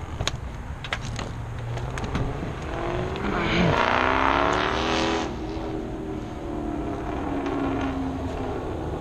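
A motor vehicle driving past. Its engine and tyre noise swells to a peak about four seconds in, then drops in pitch as it moves away.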